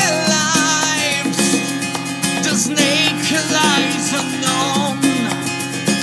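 Rock band music: a lead guitar plays a melody with pitch bends and vibrato over bass and a steady drum beat.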